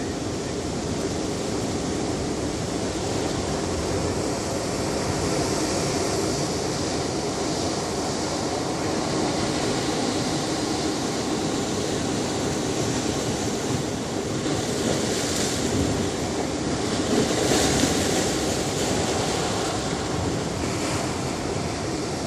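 Ocean surf on a beach: a steady rush of breaking and washing waves, with a few louder swells of hiss as bigger waves come in, the strongest in the second half.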